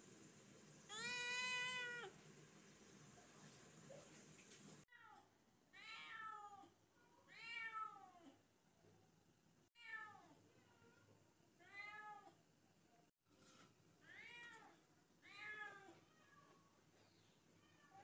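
A kitten meowing: one long, level meow near the start, then a string of shorter meows that rise and fall in pitch, one every second or two.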